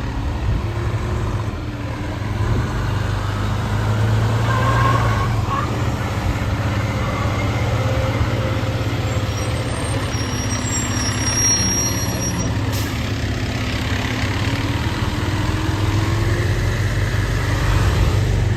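Heavy diesel fire truck engine running steadily, its pitch drifting up and down slightly.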